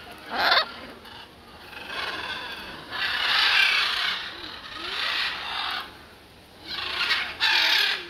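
Macaw giving harsh squawks: a short one about half a second in, longer ones around three to five seconds in, and two more near the end.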